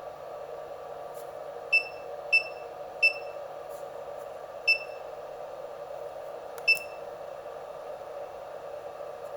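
Battery charger's beeper giving five short high beeps at irregular intervals, the kind of key-press beeps of a HobbyKing Reaktor charger as its new membrane keypad buttons are pressed, over a steady background hum.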